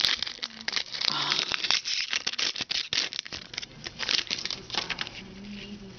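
Foil trading-card pack wrapper crinkling and tearing as it is opened by hand, thinning out after the first few seconds.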